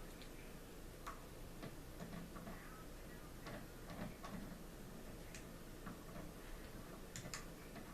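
Faint, irregular small clicks and taps of a sling swivel stud being screwed into a wooden rifle stock, turned with an Allen key as a lever.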